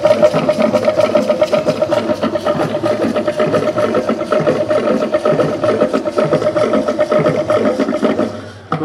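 Traditional Nigerian dance music for a troupe of masquerade-style dancers: fast, even percussion with a high note held over it. The music drops away near the end.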